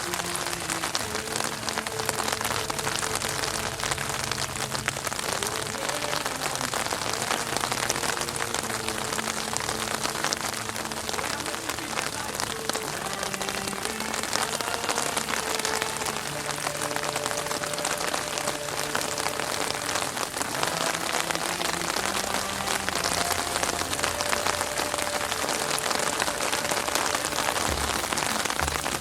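Heavy rain pouring steadily onto a street: a dense, even hiss with no let-up.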